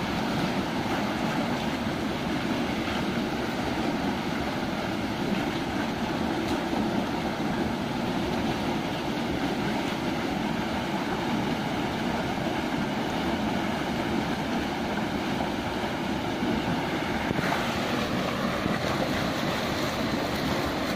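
Water rushing steadily out through the opened sluice gate of a tiger-prawn pond and churning into the harvest net held in the outflow, as the pond is drained for harvest.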